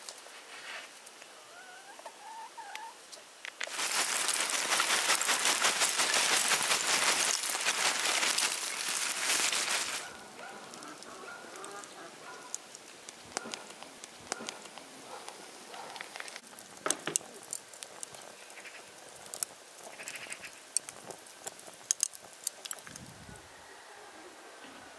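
A hen clucking, then a loud, dense rustling crackle for about six seconds, followed by scattered sharp clinks and clatters of lumps of charcoal being set into a clay brazier, with birds chirping.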